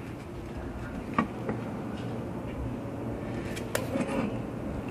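A few light metal clicks and taps as titanium exhaust manifold nuts are handled on the studs, the sharpest a little under four seconds in, over low steady background noise.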